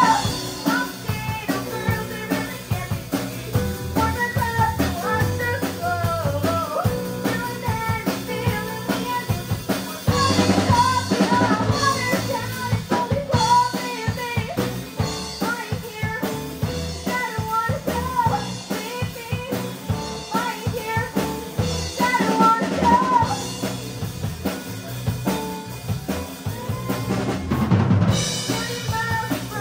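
Rock band playing live, with electric guitars over a drum kit.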